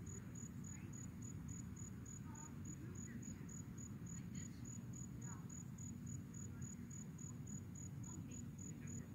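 Cricket chirping steadily: a high, evenly pulsed chirp about three or four times a second, over a low outdoor rumble.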